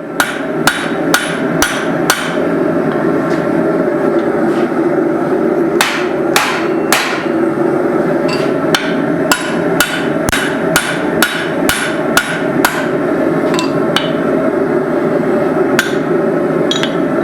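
Hand hammer striking hot steel on the anvil, forging a hammer head's cheeks around a drift in its eye. Sharp ringing blows come in runs of about two to three a second, with a few seconds' pause in between, over a steady hum.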